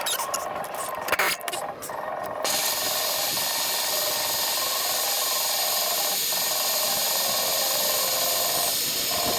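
Irregular scraping and rubbing of hand-tool work for the first two and a half seconds, then a steady hissing noise that starts suddenly and keeps on.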